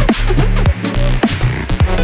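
Electronic dance music with a heavy bass line, falling synth sweeps and a fast, hard beat.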